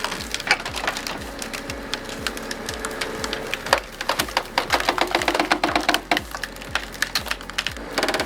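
A big log popping open under pressure: wood cracking and splintering in many sharp, irregular snaps, thickest in the second half.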